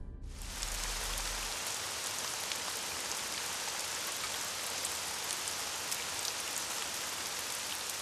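Steady rain falling on a wet paved road and forest, with individual drops ticking through the even hiss.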